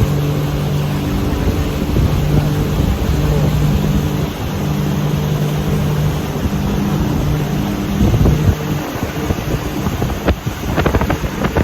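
Motorboat engine running steadily at cruising speed, with wind buffeting the microphone; the buffeting gets rougher and more irregular near the end.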